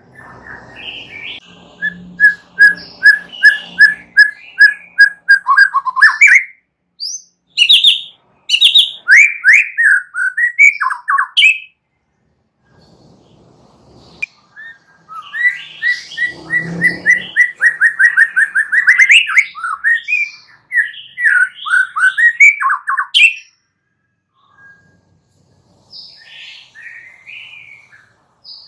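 White-rumped shama (murai batu) singing loudly: runs of rapid, evenly repeated notes mixed with whistled and chattering phrases. The song breaks off twice for about three seconds.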